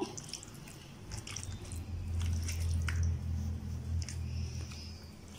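A hand squishing and kneading quail pieces in a thick, wet chilli-masala and curd marinade in a glass bowl: soft, scattered wet squelches and little clicks, over a low hum from about one and a half seconds in until near the end.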